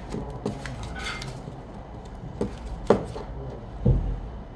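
A few light clicks and taps of a soldering iron working on an LED module board while an LED is soldered in, with a duller knock near the end that is the loudest.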